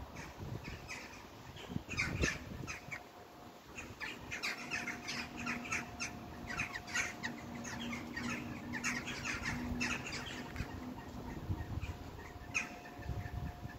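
A flock of birds calling overhead: many short, rapid squawking calls in bursts, busiest in the middle.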